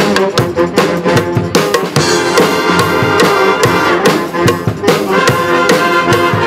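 Pep band playing: brass and saxophones sounding a tune over a steady, driving drum beat with sharp percussion hits.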